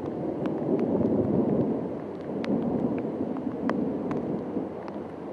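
Rolling thunder rumbling and slowly fading, with scattered sharp ticks over it.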